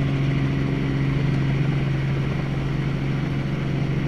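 Helicopter running, a steady drone with a strong low hum.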